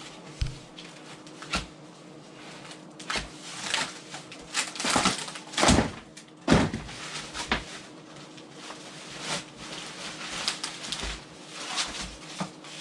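Clear plastic stretch wrap crinkling and rustling as it is pulled off flatpack MDF cupboard panels, with irregular bursts and a few knocks of the boards being handled.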